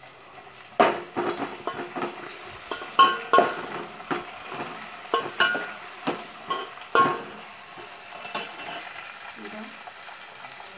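A steel spoon stirring onions, green chillies and curry leaves frying in oil in an aluminium pot: about a dozen irregular clinks of the spoon against the pot, loudest around three and seven seconds in, over a steady sizzle. The clinks thin out after about eight and a half seconds.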